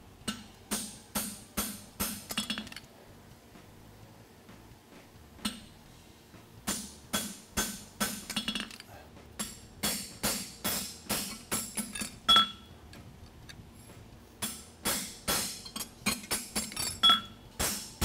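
Hand hammer striking a creaser and a nail punch held on a steel horseshoe over an anvil, in runs of quick blows with a pause of a few seconds near the start. Two strikes ring out louder and leave a metallic ring. The blows are fullering and punching the nail holes of the shoe.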